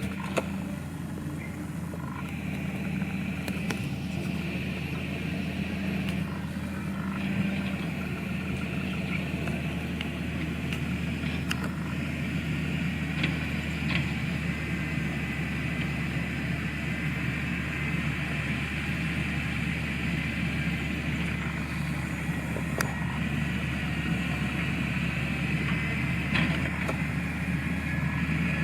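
Heavy diesel earthmoving machinery running steadily: a deep, even engine hum with a steady high whine above it and a few light clanks.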